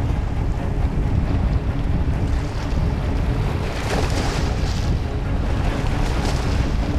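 Wind buffeting the microphone, a continuous low rumble with a rushing hiss, over wind-driven lake water.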